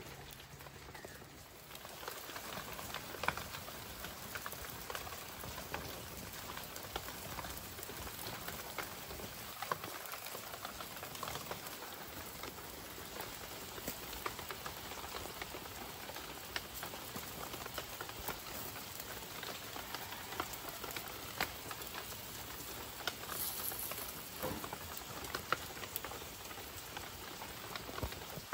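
Wood fire crackling and pig's liver sizzling on a wire grill over it: a steady patter of small pops and crackles.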